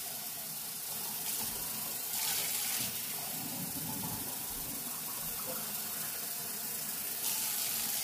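Kitchen faucet running steadily as a cup is filled with water, getting a little louder near the end.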